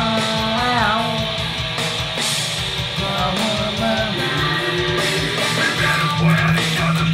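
Electric guitar, an ESP LTD, played rock-style while a man sings along over it.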